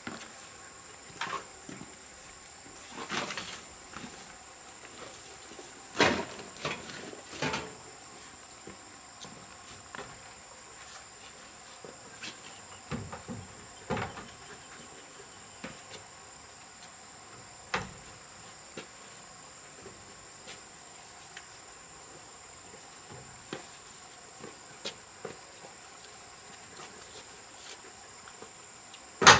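Steady high-pitched insect chirring, with scattered knocks and clunks of objects being handled and set down, the loudest about six seconds in.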